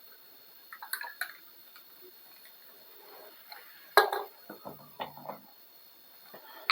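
Small hard objects being handled and set down on a surface: a few light clicks about a second in, a sharp knock about four seconds in, then a short run of lighter knocks and rattles.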